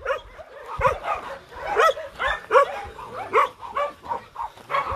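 Several dogs barking, short barks coming about three a second.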